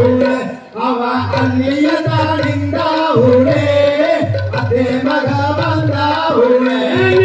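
Valli Kummi folk song: voices sing a melodic line over a steady drum beat, with a brief break in the music under a second in.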